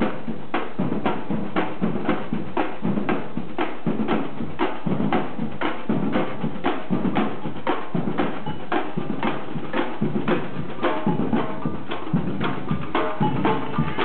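Drums played in a steady, even rhythm of about two to three strokes a second, with deep bass-drum beats under sharper hits. Some higher pitched tones join in over the last few seconds.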